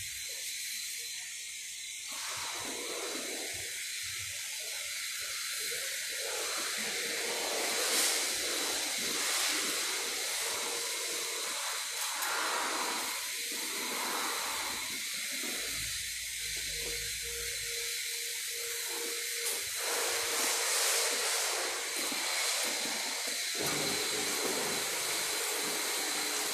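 Steady hiss of a water jet from a spray nozzle rinsing foamy wheel cleaner off a car's alloy rim and tyre.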